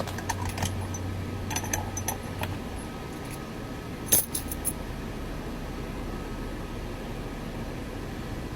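Small metallic clicks and clinks of keys and tools working a Kwikset SmartKey lock cylinder as it is reset for rekeying: a cluster of light clicks in the first couple of seconds and a louder clink about four seconds in, over a steady low hum.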